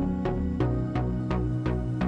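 Background music: held low notes over a steady beat of about three hits a second.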